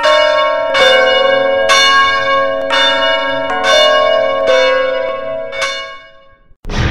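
A bell struck about six times, roughly once a second, each stroke ringing on over the next, the ringing fading out near the end.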